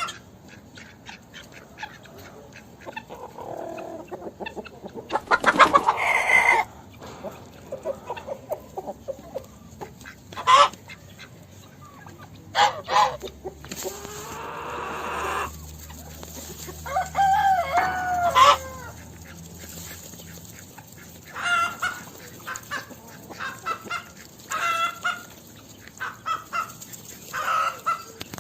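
Chickens clucking in a farmyard, with many short calls and louder squawks, and a rooster crowing once, a little past the middle.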